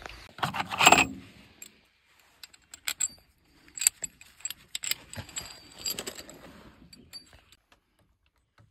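Metal screws and washers clinking and jingling as they are handled, heard as a run of light, sharp metallic ticks. A louder clatter comes about a second in.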